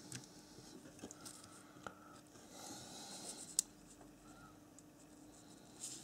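Small metal parts of an H0-scale model steam locomotive chassis being handled by fingers and pliers: faint scattered clicks and light rustling, with one sharp click about three and a half seconds in.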